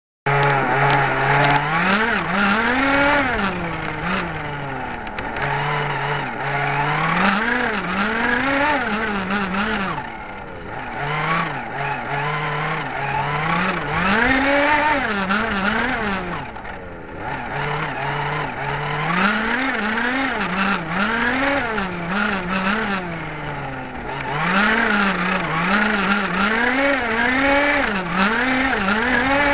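Small vehicle engine revving up and down in quick throttle blips, dropping back to a steady idle every few seconds.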